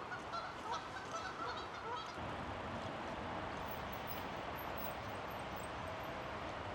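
Waterfowl honking, a quick run of short calls in about the first two seconds, over a steady rushing noise.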